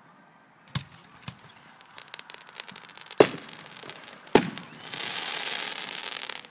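Aerial fireworks bursting: two smaller bangs, a spatter of crackling, then two loud bangs about a second apart, followed near the end by a dense, continuous crackle.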